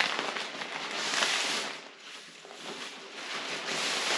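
REI Co-op Flash Air 2 tent fabric and its stuff sack rustling and crinkling as the tent is pulled out of the bag, in two stretches.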